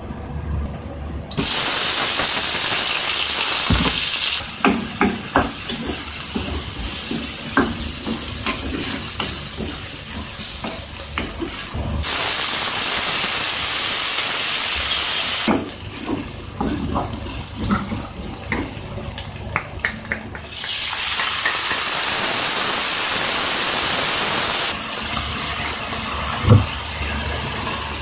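Chopped onions and whole spices sizzling hard in hot oil in a non-stick frying pan, with a wooden spatula scraping and knocking against the pan as they are stirred. The loud sizzle cuts in and out a few times.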